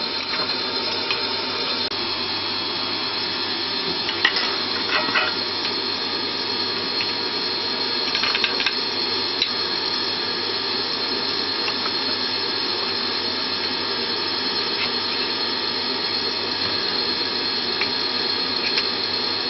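Extractor fan running steadily, a constant rushing noise with a high whine. A few light knocks and scrapes of steel tools on the fresh aluminium casting and sand mould come between about four and nine seconds in.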